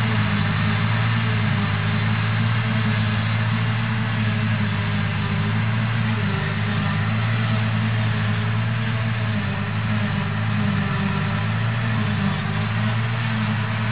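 Steady, unbroken drone of a John Deere 6650 forage harvester and its accompanying tractor working, chopping grass into the trailer, with a constant low hum that holds the same pitch throughout.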